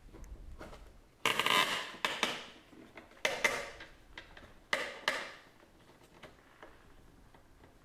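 Plastic side-mirror glass backing and its retaining tabs creaking as they are pulled loose by hand, in several sudden bursts between about one and five seconds in.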